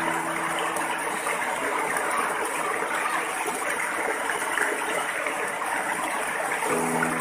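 Small waterfall: water spilling over a rock ledge in thin sheets and splashing onto the rocks below, a steady rushing without let-up.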